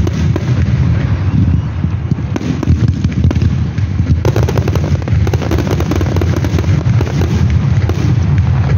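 Fireworks going off in rapid succession: continuous crackling and popping over a heavy low rumble.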